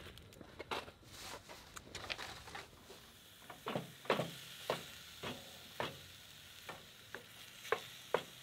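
Ground meat sizzling in a frying pan while a wooden spatula breaks it up, knocking and scraping against the pan about once or twice a second from a few seconds in.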